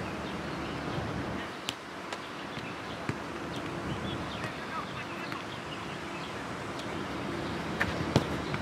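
Steady outdoor background noise with faint distant voices and a few sharp knocks, the loudest about eight seconds in.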